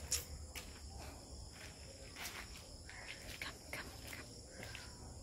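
Steady chirring of insects, with a few scattered footsteps scuffing on gritty asphalt.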